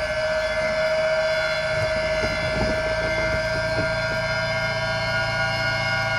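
Steady electrical whine of several constant high tones in a Piper PA-28 Warrior's cockpit audio, with the master switch on and the engine not yet running.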